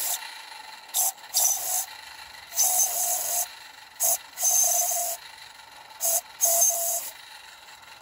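DJB Engineering manual steam whistle on a Roundhouse Katie live-steam locomotive, blown in seven short blasts: a brief toot, then a longer blast, three times over, with one more toot at the start. The blasts are mostly hiss with a weak whistle note coming through, as the freshly cleaned whistle clears condensation and warms up. Between blasts, the locomotive runs steadily.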